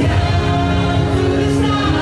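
The show's music: long held notes with singing voices, at a steady loud level.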